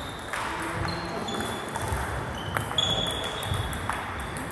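Table tennis rally: a celluloid-type ball clicking off bats and the table about once a second, with a few brief high-pitched squeaks in between.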